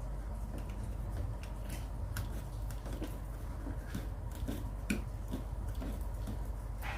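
Utility knife scraping and prying a glued LED backlight strip loose from a TV panel: irregular small scrapes and clicks over a steady low hum.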